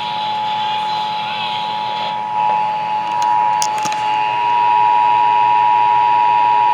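Emergency Alert System attention signal: a steady two-tone sound held without a break over a hiss of broadcast noise, coming just before a National Weather Service severe thunderstorm warning is read.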